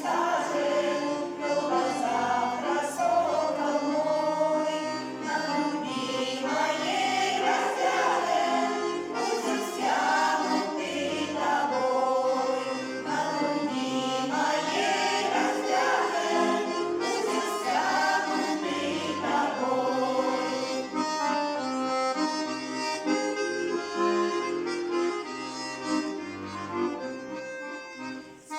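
Folk ensemble performing a romance: an accordion plays melody and a regular bass accompaniment while a group of voices sings together.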